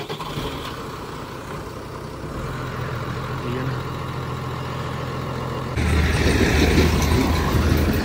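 New Holland tractor's diesel engine running steadily with a low hum that rises a little about two seconds in. About six seconds in the sound turns abruptly louder and rougher.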